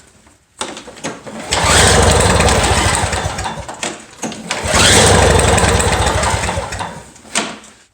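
Two pulls on the recoil starter of a Toro two-stroke snow blower. Each pull spins the engine over for a couple of seconds with a fast pulsing, and it does not fire because the spark plug is out on a spark tester. The tester shows the ignition is making spark.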